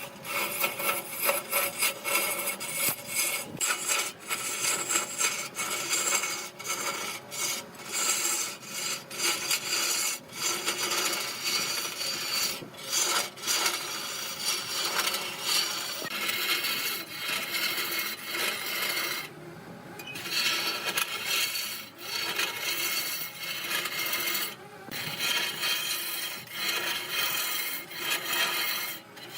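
A wooden workpiece spinning on a lathe rasps against the turning tool in a rough, uneven scraping noise that swells and dips. Faint steady hum tones from the lathe run beneath it, and there are a few brief breaks, the clearest about twenty seconds in.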